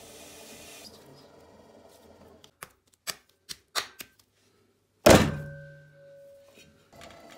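A ball of clay thrown down onto a pottery wheel head with one loud thud that dies away with a brief ringing from the wheel head. Four short sharp taps come before it, and a steady running noise comes back near the end.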